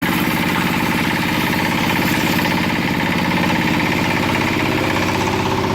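Engine-driven machine of a cement render spraying rig running steadily, with a fast even pulse.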